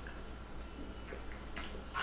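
Noodles being eaten quickly: wet mouth smacks and chewing, with a few short clicks, the sharpest near the end.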